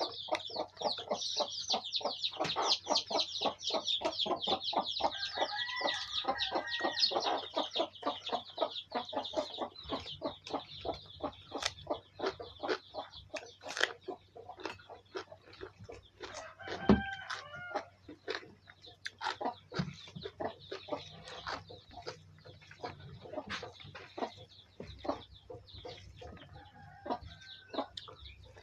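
Live chickens calling throughout: a constant rapid, high chirping, with now and then a louder pitched cluck or call.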